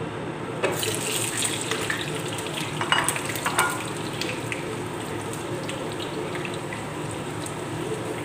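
Sweet potato slices frying in hot oil in a pan, a steady sizzle, with a spatula scraping and clicking against the pan as the slices are turned, busiest from about one to four seconds in. A steady low hum runs underneath.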